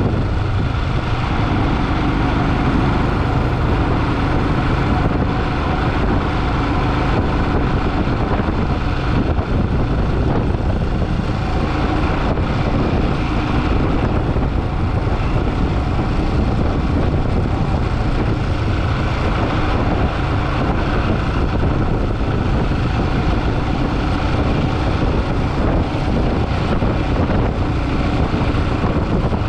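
Motorcycle engine running steadily while riding, mixed with dense road and wind noise.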